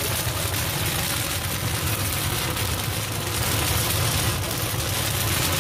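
Steady low roar of a gas burner firing under a large cast-iron kettle-corn kettle, with an even hiss on top.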